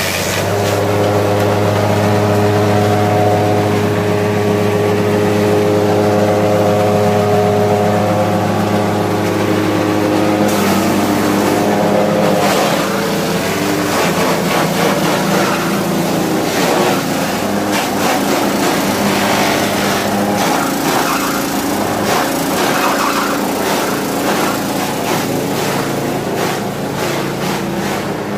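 Motor-driven grass chopper running steadily while long grass leaves are fed in and cut into fodder. A steady machine hum holds for the first dozen seconds, then turns rougher, with uneven chopping clatter through the rest.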